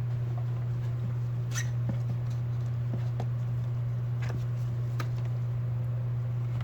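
Steady low hum, with faint scattered clicks and scratches of a tool prying at a smartphone's parts.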